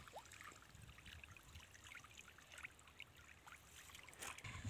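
Faint trickling and dripping of water as a fishing net is handled and drawn through shallow pond water, with a louder rush starting near the end.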